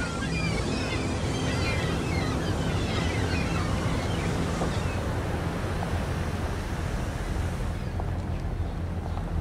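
Stormy sea: waves and wind in a steady rush, over a low steady drone. Short high cries sound over it during the first half.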